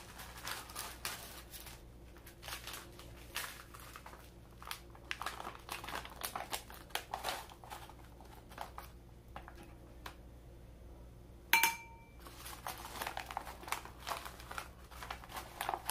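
Plastic packaging crinkling in irregular bursts as a bag of brown sugar is pulled out of a zip-top plastic bag and its folded top unrolled. About three-quarters of the way through comes a single sharp clink with a short ring, the loudest sound.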